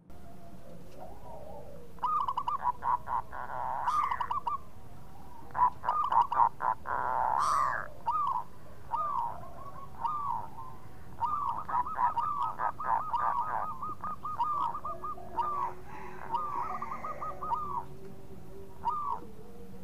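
Zebra dove (perkutut) cooing: several runs of quick, clipped notes with short pauses between. The longest run lasts about three seconds, a little past the middle.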